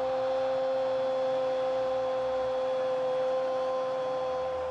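A Spanish-language football commentator's long goal call, a single shouted "gooool" held on one steady pitch for several seconds to celebrate a goal.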